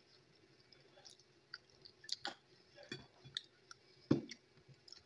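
Close-up chewing and small clicks of a metal fork against a plate, with one louder knock about four seconds in.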